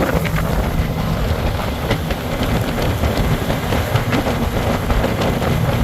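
Boat motor running steadily under way, with wind buffeting the microphone.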